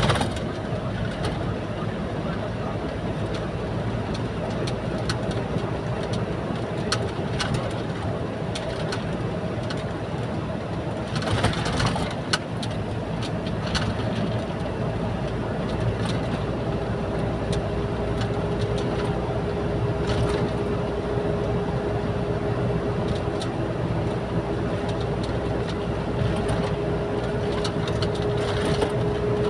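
Steady engine drone of a vehicle under way, a continuous low hum with a steady whine that grows stronger in the second half, with a few scattered clicks and a short rush of noise about eleven seconds in.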